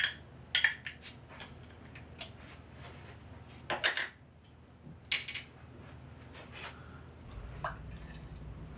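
A glass beer bottle being uncapped and handled: a sharp click right at the start as the cap comes off, then scattered clinks of glass and metal, the loudest about four and five seconds in. Near the end the beer starts pouring into a glass.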